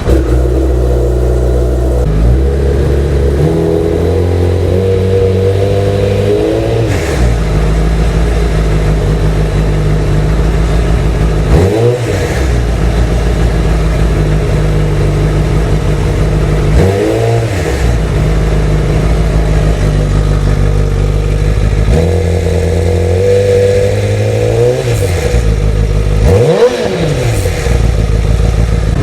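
Honda CBR1000RR inline-four sportbike engine idling and being blipped several times, the revs rising and dropping back each time.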